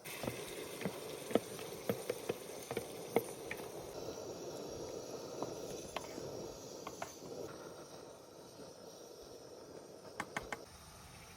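Food sizzling in a hot pan: a steady hiss with scattered sharp pops and crackles, which dies down near the end.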